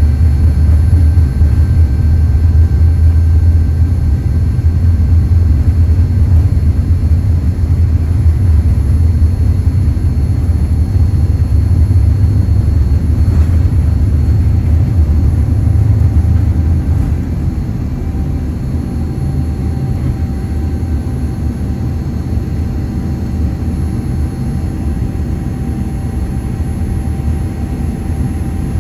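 Steady low rumble inside the cabin of a Boeing 787-9 with Rolls-Royce Trent engines. The rumble eases noticeably about two-thirds of the way through, and a faint steady whine comes in.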